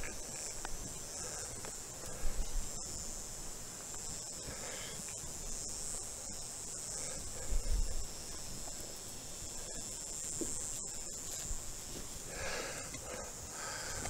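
Steady high-pitched drone of insects, with a few soft bumps and rustles from sweet potatoes being pulled out of the soil by hand.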